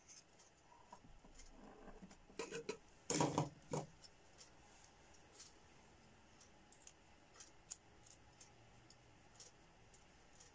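Faint handling noise of a circuit board and small parts in the hands: a few soft knocks and clicks, with a louder clatter about three seconds in.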